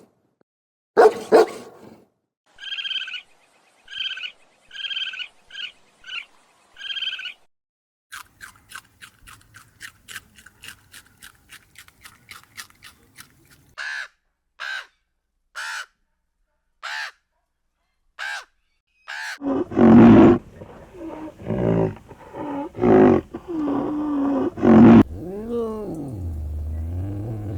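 A run of different animal calls. There are a couple of short calls about a second in, then a string of evenly repeated pitched calls, a fast train of clicks, and a few single short calls. From about two-thirds of the way in comes a stretch of loud, low growling and roaring calls.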